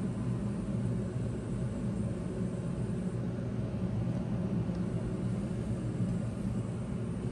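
Steady low background rumble of running machinery with no distinct events.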